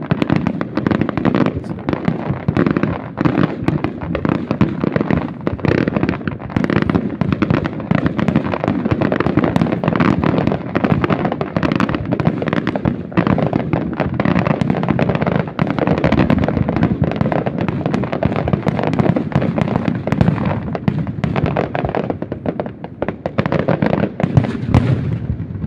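Fireworks display going off continuously: a dense, rapid barrage of bangs and crackling pops, many per second.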